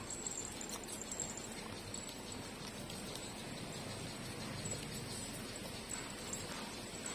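Puppies suckling from their mother dog: soft, irregular smacking and sucking sounds over a steady background hiss.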